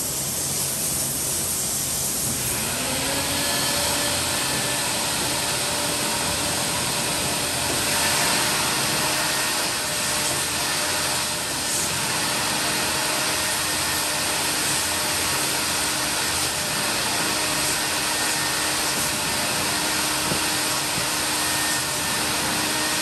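Mytee Lite 8070 carpet extractor running, its vacuum motor giving a steady rush as the hand tool extracts from carpet floor mats. A whine rises about two and a half seconds in, then holds steady.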